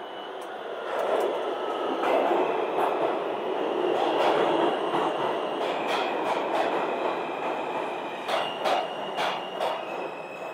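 New York City subway R train pulling into the station and braking, with a loud rumble of wheels on rail and a high steady squeal from the wheels. Several sharp clacks come near the end as it slows to a stop.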